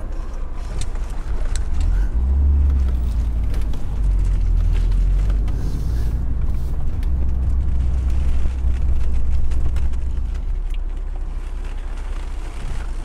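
A loud, steady, deep rumble, heaviest in the middle and easing toward the end, with a few faint ticks over it.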